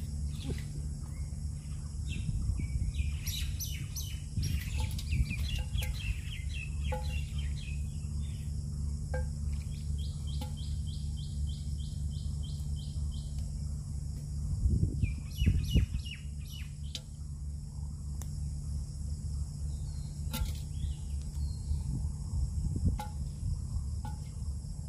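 Small birds chirping, with a quick, evenly spaced run of chirps about ten seconds in, over a steady high-pitched drone and a low hum. A couple of dull bumps come about two-thirds of the way through.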